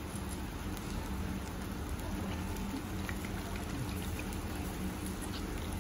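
A large batch of yakisoba noodles and cabbage sizzling steadily on a hot iron griddle, with scattered small pops and crackles. A low steady hum runs underneath.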